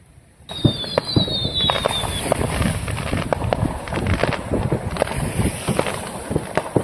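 Fireworks crackling: a dense, irregular run of sharp pops and crackles starting about half a second in. A high whistle falls slightly in pitch over the first two seconds.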